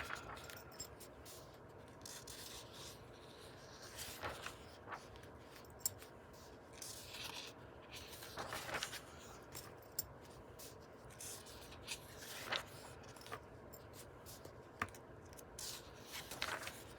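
Faint paper rustling and rubbing from a book being handled and paged through, with several separate swishes of pages and small clicks and taps between them.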